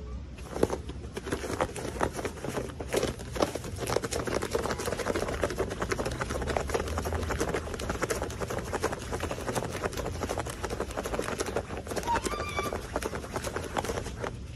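Dense rustling and rapid crackling of a fox's fur being rubbed by hand, with a brief high squeak about twelve seconds in.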